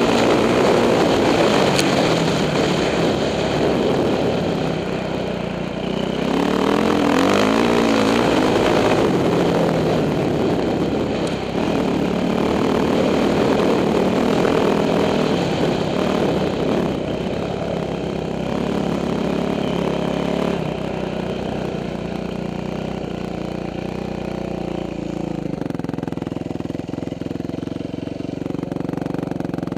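2006 Yamaha YZ450F dirt bike's four-stroke single-cylinder engine being ridden, its note rising and falling with the throttle. Over the last few seconds it settles into a steadier, lower note at low revs.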